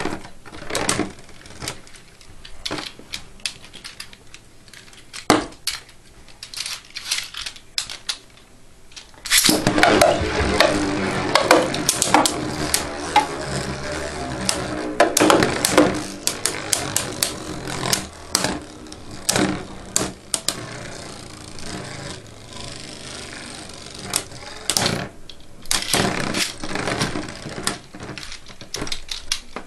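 Two plastic Beyblade spinning tops whirling in a plastic stadium, with irregular sharp clicks and clacks as they knock into each other and scrape across the floor. The clatter grows louder and denser about a third of the way in.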